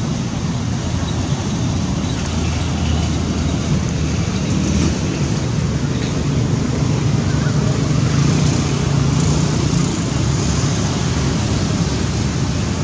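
Steady low rumble of outdoor background noise that does not let up, with no distinct events standing out.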